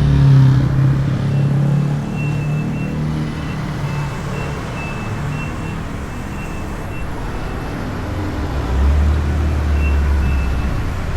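Motorbike engine and street traffic: a low rumble that swells briefly near the start and again near the end, with a short high beep repeating on and off throughout.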